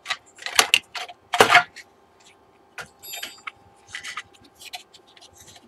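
Handling clatter as a monitor's power supply circuit board is lifted out of its sheet-metal chassis: a string of separate clicks and knocks of board, cable and metal, the loudest about a second and a half in.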